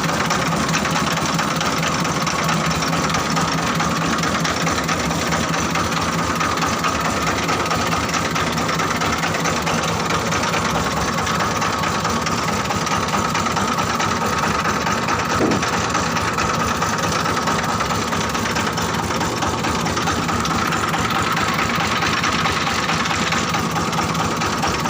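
Diesel engine running steadily while it drives a mobile rice-hulling machine, a dense fast mechanical rattle with a steady high whine over it.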